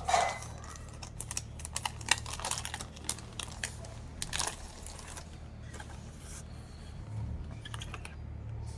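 Scattered dry clicks and scratchy rustles from paint brushes being handled, dense at first and thinning out after about five seconds, over a steady low hum.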